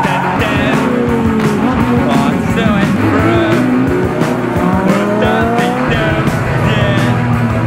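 A car engine revving in repeated rising sweeps, with tyre squeal, mixed with music that has a steady beat.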